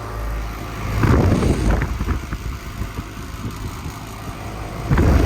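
2022 Goodman central air conditioner condensing unit with a Copeland scroll compressor, running with a steady low hum and a loud rattle that swells about a second in and again near the end.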